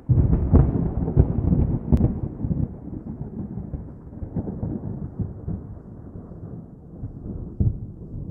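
Distant thunder: a low rolling rumble that breaks in suddenly, crackles and swells through the first few seconds, then slowly fades, with another swell near the end.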